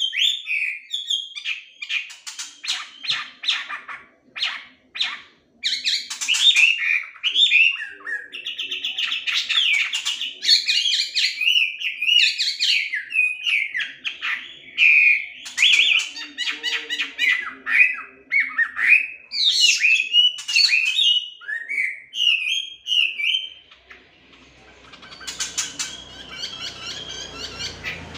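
Melodious laughingthrush (hwamei) singing loudly and without pause: a varied run of whistled phrases sliding up and down in pitch, mixed with quick repeated notes and harsh chattering. Near the end the song breaks off briefly under a low rumble, then starts again.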